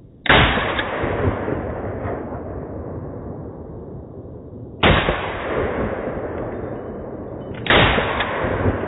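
Three single shots from a G3 battle rifle in 7.62×51mm NATO: one just after the start, one about halfway, one about a second before the end. Each sharp crack is followed by a long rolling echo that fades over a couple of seconds.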